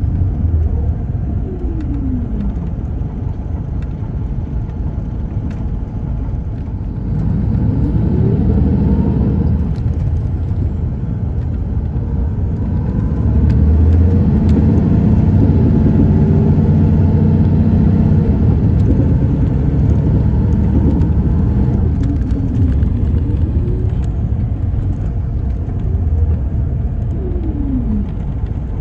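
Cummins ISX12 diesel engine of an MCI D4505 coach, heard from inside the bus as it drives. The engine note drops about a second in, builds from about seven seconds to its loudest, heaviest pull through the middle, then eases and rises and falls again near the end, over a steady low rumble. A faint high whistle rides on top while it pulls hardest.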